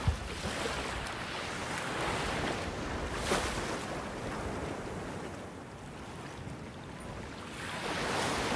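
Sea waves washing onto the shore, the surf swelling and easing away twice, with some wind on the microphone. A short knock about three seconds in.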